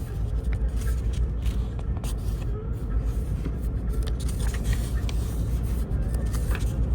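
Steady low rumble of road noise heard inside a moving car, with a few faint clicks and rustles.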